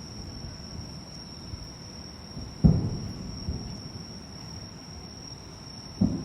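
Two distant fireworks booms, about a third of the way in and again near the end, each a sudden low thump that rumbles away. Between and under them, insects trill steadily in a single high tone.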